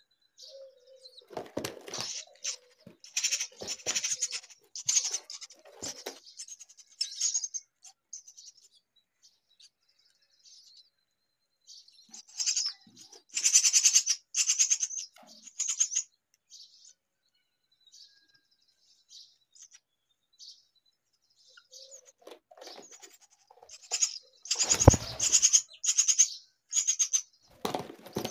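Myna chicks calling in bouts of a few seconds: high, rapidly pulsed calls with quiet gaps between. A loud thump comes about 25 seconds in, amid the calling.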